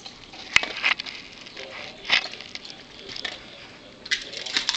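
Gumball-style kibble dispenser worked by a dog: a few sharp clicks and rattles as the lever is pushed and kibble drops into the dish, with a quick cluster of clatters near the end.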